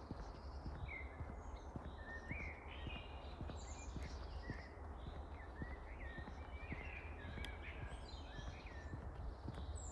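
Several small songbirds chirping and twittering, short calls following one another throughout, over a steady low rumble, with soft footsteps.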